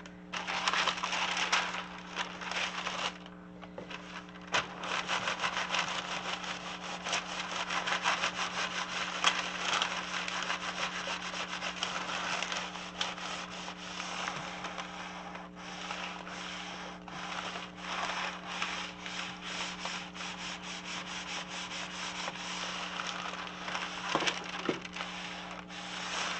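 A clothes iron sliding back and forth over baking parchment paper laid on vellum: a continuous rustling, scraping paper sound full of small crackles, with brief lulls. A steady low hum runs underneath.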